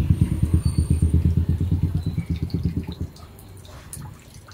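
An engine running with a steady low throb, which dies away about three seconds in. A few faint clicks follow.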